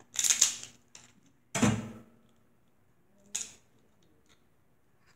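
Dungeness crab shell being cracked open by hand: three sharp, crunchy cracks spread over the first three and a half seconds, with small clicks and snaps between them.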